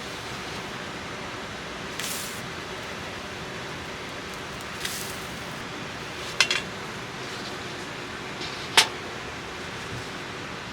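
Steady hiss with a few sharp clicks and clinks: one about two seconds in, one near five seconds, a quick cluster of three around six and a half seconds, and the loudest near nine seconds.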